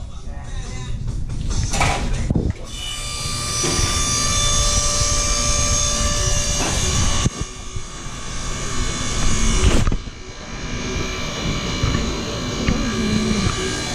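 Auto-shop machinery noise: a steady high-pitched mechanical whine with clatter, starting a couple of seconds in, swelling and then dropping off sharply about ten seconds in.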